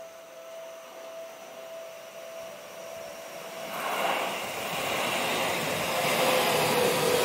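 A Seibu Shinjuku Line train arriving at the station platform. Its rushing noise swells from about halfway in and keeps growing louder, and near the end a whine slides slightly lower in pitch.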